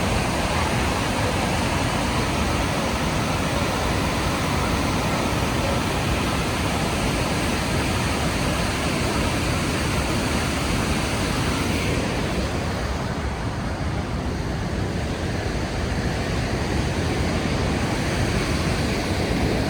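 The Rhine Falls waterfall's steady roar of rushing, crashing water, with a deep rumble underneath. Its high hiss turns duller for several seconds past the middle, then returns.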